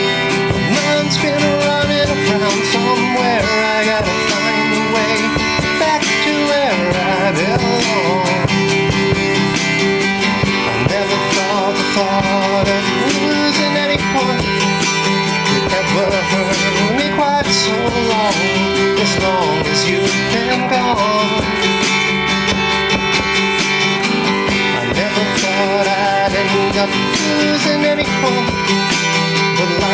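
Live one-man-band song: a man sings over a strummed acoustic guitar while a hi-hat cymbal ticks out the beat.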